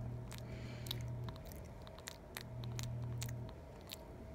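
Faint, irregular little clicks and smacks from a java macaque's mouth as it nibbles and picks at cloth and its fingers, over a low hum that cuts out and comes back twice.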